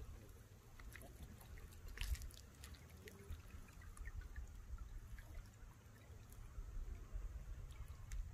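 Faint trickle of running water, with scattered small clicks and a low rumble.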